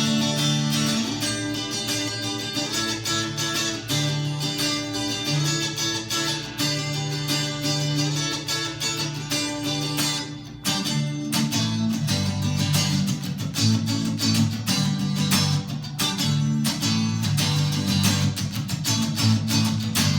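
Fender Telecaster electric guitar played with a clean tone, ringing chords and single notes. There is a short break about halfway through, followed by busier playing.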